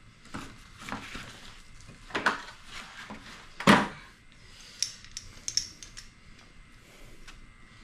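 Hand tools clinking and knocking on metal while a small engine's carburetor is being unbolted: a run of scattered knocks and light clicks, with one louder clank a little under four seconds in.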